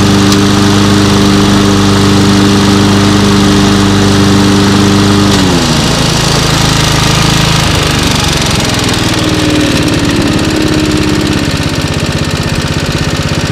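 Suzuki engine of an old Toro push lawnmower running steadily at speed. About five and a half seconds in its speed drops, and it runs unevenly at low speed, settling into a fast, lumpy idle near the end.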